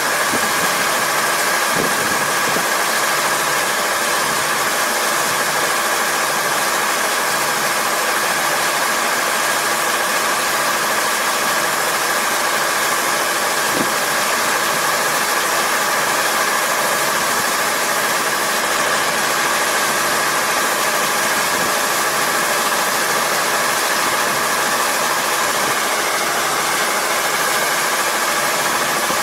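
Kubota ER470 four-row combine harvester running steadily: its diesel engine and machinery make an even mechanical noise with a few steady whining tones over it.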